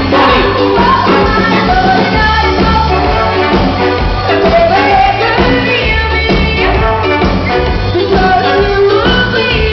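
A live band playing a song with singing over it, with a heavy, pulsing bass line.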